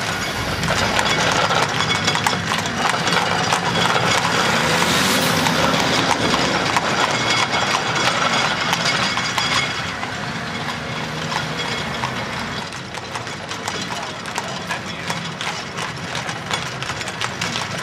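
Hooves of a pair of harness horses clip-clopping on asphalt as they pull an antique horse-drawn fire engine, with a car engine running underneath.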